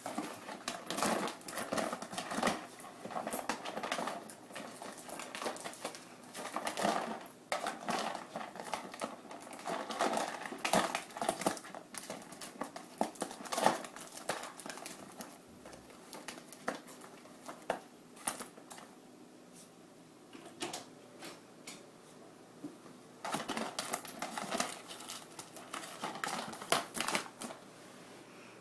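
A dog pawing and biting at a taped-shut cardboard box, the cardboard crinkling and crackling in irregular bursts of clicks. There is a quieter stretch in the middle, and then a fresh burst near the end.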